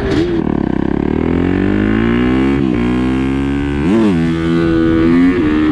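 Small off-road engine accelerating, its pitch climbing smoothly for about two seconds. It gives two quick rev blips, a little under three and about four seconds in, then runs at a steady pitch.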